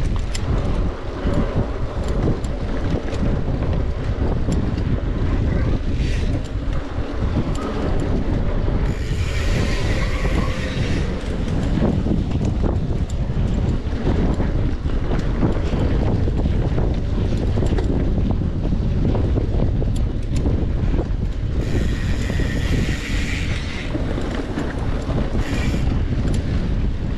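Wind buffeting the microphone of a camera riding on a mountain bike at race pace, a steady rumble broken by frequent short clatters and knocks from the trail. Twice a brighter hiss rises for about two seconds.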